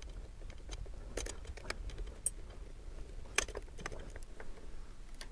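Scattered light metallic clicks and taps as a brake caliper bolt and its spacer are handled and threaded in by hand, with a sharper click about three and a half seconds in.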